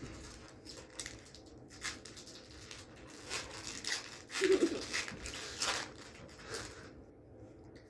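Scattered crinkles and rustles of a foil trading-card booster pack wrapper and cards being handled, a dozen or so short irregular strokes, dying down near the end.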